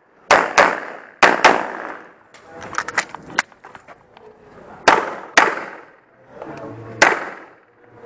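Pistol shots fired in quick pairs, each a sharp crack with a short echo, with lighter clicks and knocks between the pairs.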